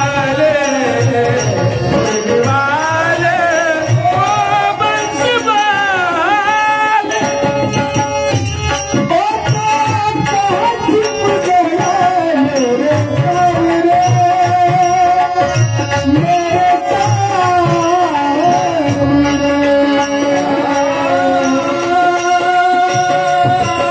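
Marathi Warkari devotional music: a wavering melodic line over a steady held drone, with a drum and quick regular cymbal-like ticks keeping the beat.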